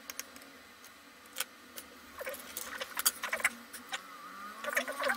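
Handling of a disassembled laptop hard drive and its small parts on a silicone work mat: scattered clicks and light rattling, busier from about two seconds in, with a short rising squeak near the end.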